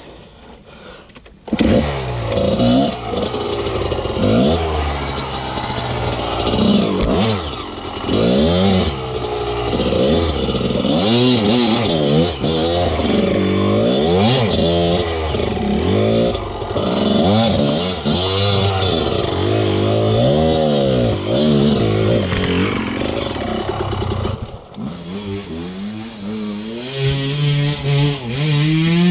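Enduro dirt bike engine revving, its pitch rising and falling over and over as the throttle is worked; it starts suddenly about a second and a half in, drops to a lower, quieter run near the end, then climbs again.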